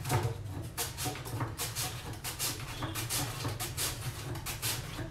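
A peeled potato scraped back and forth across a flat steel vegetable slicer, in quick repeated strokes of about three or four a second. A steady low hum sits underneath.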